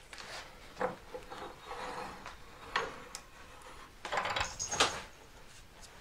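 A few light knocks and scrapes of metal tools and a small metal workpiece being handled on a workbench, with a longer scraping run about four seconds in.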